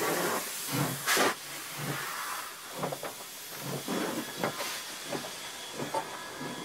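SNCF 141 R Mikado steam locomotive moving off: steady steam hissing around the cylinders and running gear, broken by repeated exhaust chuffs, with the loudest blast of steam about a second in.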